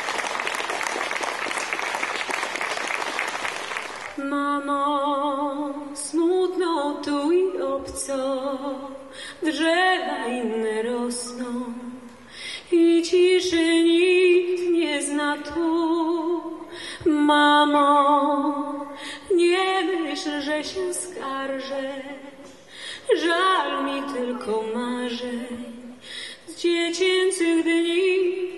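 Audience applause for about four seconds, then a woman sings solo and unaccompanied, in long phrases with vibrato on the held notes and short pauses between phrases.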